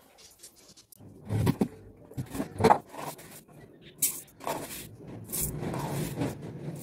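Kitchen containers and utensils being handled and shifted about by hand: a series of irregular scrapes and knocks, with a longer stretch of rustling and scraping near the end.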